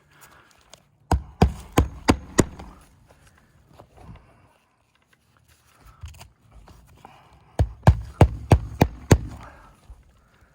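Hammer blows on a roof, two quick runs of about five or six strikes each, typical of nailing down a replacement shingle.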